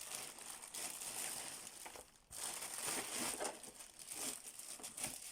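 Box packaging being handled and pulled apart: irregular rustling and crinkling, with a brief pause about two seconds in.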